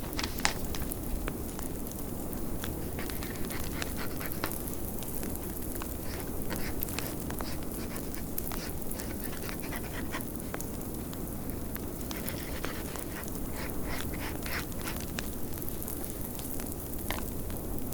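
Wood fire crackling, with scattered sharp pops over a steady low rush of blizzard wind.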